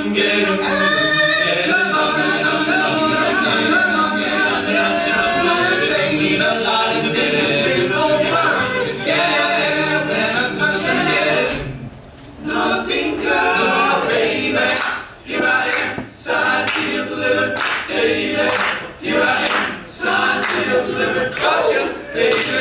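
All-male a cappella group singing close-harmony chords with no instruments. The chords are held for the first half, then after a brief break about halfway through they turn into short, punchy chords with pauses between them.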